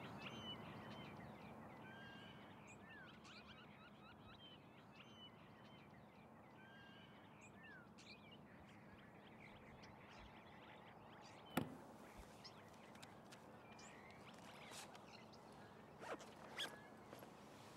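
Near silence: faint outdoor ambience with a steady hiss and scattered short bird chirps, a single sharp click about two-thirds of the way through, and a few small clicks near the end.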